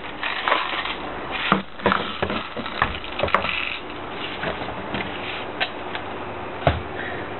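Irregular clicks and knocks of a Jing Gong G36C airsoft replica's plastic and metal body being handled and set down on a wooden table, about ten sharp taps over a faint steady hum.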